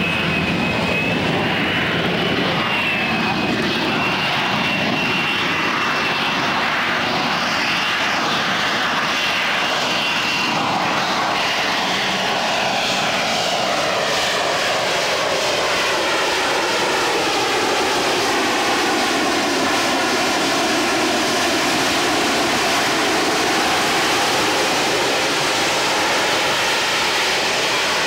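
AV-8B Harrier's Rolls-Royce Pegasus turbofan holding the jet in a low, slow hover: a loud, steady jet roar. For the first several seconds a high whine wavers over the roar. After that the roar takes on a sweeping, phasing sound as the aircraft drifts sideways.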